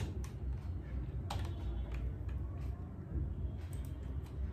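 A few spaced-out keystrokes on a computer keyboard, typing a short name, over a low steady hum.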